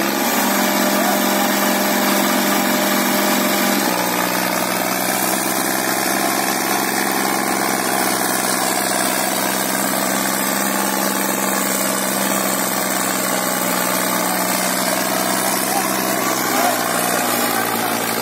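Diesel tractor engines of a New Holland 3630 and an Arjun Novo 605 running steadily under heavy load as the two tractors pull against each other in a tug of war. The engine note steps down slightly about four seconds in, then holds steady.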